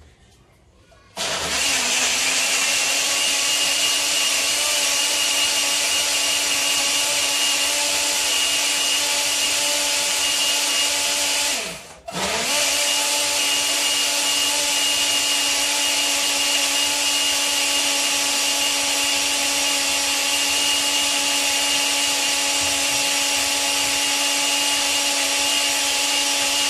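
Electric blender running at full speed, blending a thick mix of banana, nuts, peanut butter and whey protein in water, with a steady high whine. It starts about a second in, cuts out for a moment about halfway through, then starts again and runs on.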